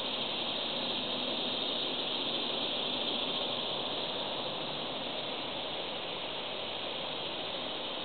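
Steady high-pitched insect chorus droning without a break; no woodpecker calls or tapping stand out.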